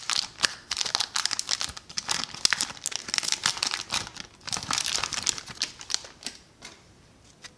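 Foil wrapper of a 1990 Leaf baseball card pack crinkling and tearing as it is opened by hand, a dense run of quick crackles that dies away about six and a half seconds in.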